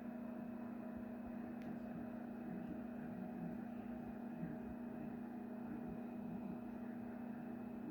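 Steady low hum with a fainter higher tone over a constant even hiss, unchanging throughout.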